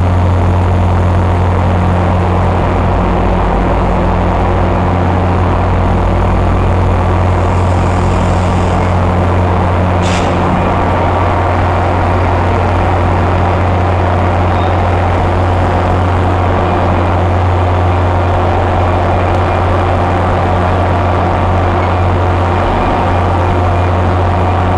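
Diesel commuter-rail locomotive idling with a steady deep hum. A single short click or clank about ten seconds in.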